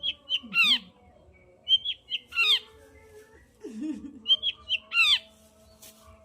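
Long-tailed shrike (cendet) singing a repeated phrase three times, about every two seconds. Each phrase is two short high notes followed by a harsh, downward-sweeping note.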